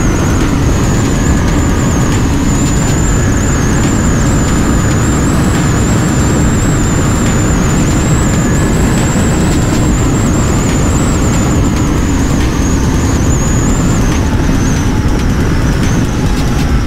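Wind rushing over the microphone at road speed, with the KTM RC 390's single-cylinder engine running steadily underneath. A thin high whistle wavers above it.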